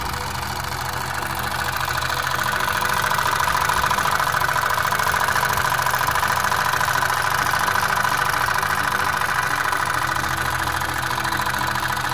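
Miniature twin-cylinder oscillating steam engine running on compressed air, its flywheel spinning fast and its exhaust giving a rapid, even chuffing that grows louder about two seconds in.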